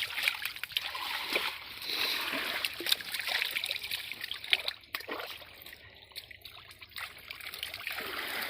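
River water splashing and trickling, with many quick irregular splashes. It dies down about five seconds in and picks up again near the end.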